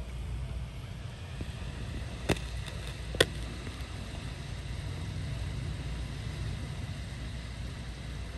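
Steady low rumble of thunderstorm wind and rain, with two sharp clicks about a second apart a few seconds in.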